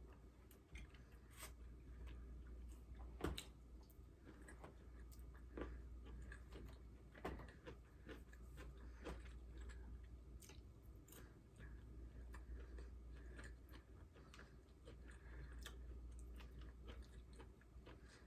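Faint close-up chewing of food, with scattered small mouth clicks and smacks over a steady low hum.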